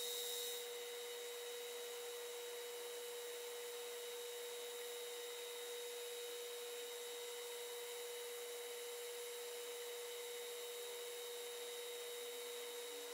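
Metal lathe running with a steady whine while a tool bit takes an interrupted cut on a small brass hinge blank. A little extra hiss of cutting can be heard in the first half second.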